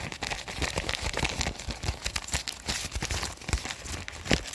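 Squishy toys being squeezed and rubbed together close to the microphone, giving a dense, continuous crackling and crinkling made of many quick little clicks.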